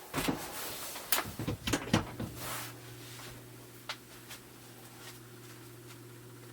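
Plastic clicks and knocks as the drum humidifier is handled and plugged in, then its small drum motor starts about two seconds in and hums steadily as it turns the drum.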